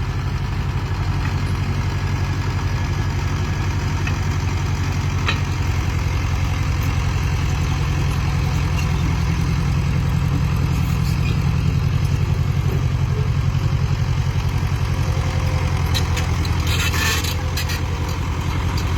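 Mini excavator's diesel engine running steadily as the machine digs and levels soil, with a few short clatters and a brief rushing noise about three-quarters of the way through.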